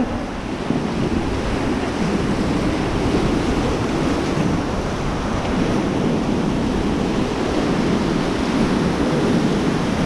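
Whitewater rapids rushing around an inflatable raft, a loud, steady rush of churning water, with wind buffeting the microphone.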